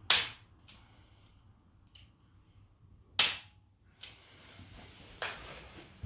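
Activator hand-held spring-loaded adjusting instrument firing: three sharp clicks, one right at the start, one about three seconds in and a softer one about five seconds in, with fainter ticks between, each click delivering a quick low-force adjustment thrust.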